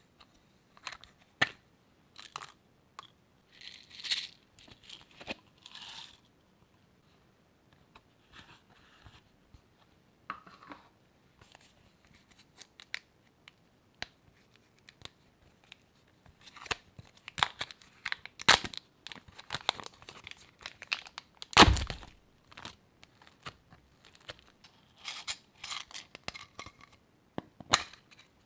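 Crunchy slime being handled and mixed by hand: scattered crackles, pops and clicks, sparse for a while in the middle and busier later, with one heavier thump about three-quarters of the way through.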